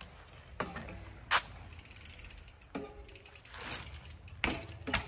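YT Industries Capra full-suspension mountain bike being ridden: the rear hub ratchets as the wheel freewheels, with several short knocks from the bike as it rolls and is pulled up into a wheelie. The sharpest knock comes about a second and a half in.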